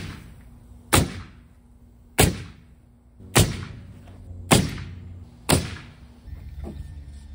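Pneumatic nail gun firing nails through OSB sheathing into the wall's 2x4 top plate: six sharp shots about a second apart.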